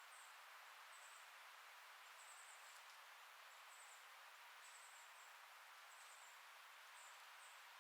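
Very faint summer insects, cricket-like, giving short high chirps about once or twice a second over a steady soft hiss.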